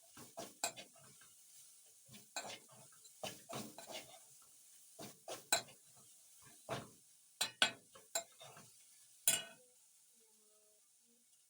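A cooking spoon knocking and scraping against a pot while food is stirred: irregular clinks and knocks for about nine seconds, then they stop.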